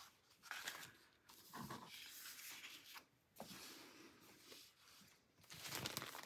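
Faint rustling and sliding of paper and cardstock being handled and set aside on a tabletop, in several soft shuffles with a slightly louder one near the end.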